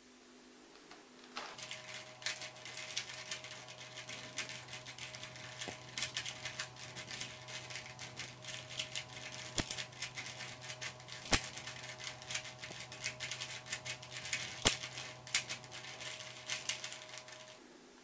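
Plastic 3x3 Rubik's Cube being scrambled by hand: its layers are twisted quickly and continuously, a rapid irregular clicking and clattering. It starts a second or two in and stops just before the end, over a faint steady hum.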